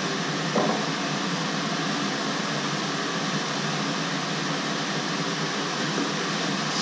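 Steady, even hiss of a thin pancake cooking in a frying pan over a gas burner. There is a short knock about half a second in.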